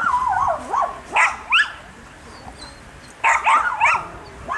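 A dog giving short, high-pitched yips and whines in quick clusters. There is a wavering whine at the start, two upward-sliding yips about a second in, and a run of three or four more just past three seconds.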